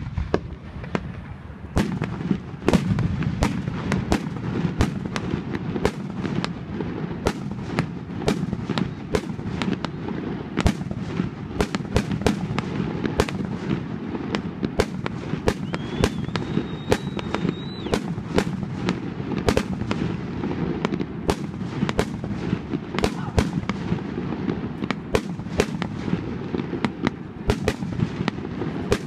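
Aerial fireworks display: a rapid, continuous run of shell bursts, about one or two sharp bangs a second, over a steady low rumble. A thin high whistle sounds for about two seconds midway.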